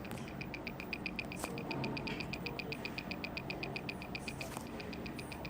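Onboard speaker of a Supermicro X9SRH-7TF server motherboard clicking in a fast, even train of short ticks, about ten a second, over a steady low hum. Two louder, sharper clicks stand out, about a second and a half in and near the end.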